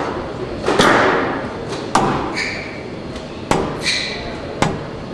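Squash rally: four sharp strikes of racquet and hard rubber ball against the walls, about a second apart, each ringing on in the hall. Two short squeaks of court shoes on the wooden floor come between the strikes.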